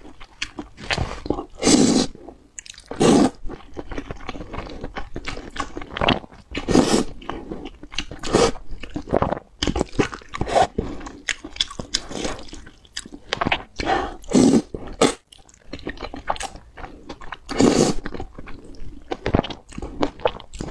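A person slurping and chewing noodles, with wet mouth and chewing noises throughout and a few louder, longer slurps every few seconds.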